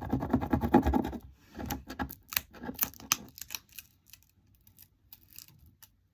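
Vinyl lettering being rubbed down onto card and peeled from its backing: dense scratching and rubbing for about the first second, then scattered short crackling ticks that grow fewer and quieter toward the end.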